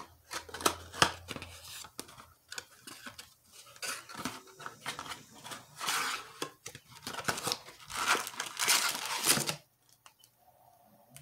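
Cardboard trading-card blaster box being torn open by hand, then the stack of plastic-wrapped card packs rustling and crinkling as it is pulled out: an irregular run of tearing, scraping and clicking, loudest in the second half, stopping shortly before the end.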